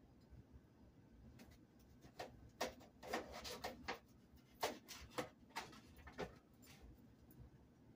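Kitchen knife cutting a bell pepper on a plate: a run of irregular crisp cuts and knocks from about two seconds in to about six seconds in, with a short scraping stretch near the middle.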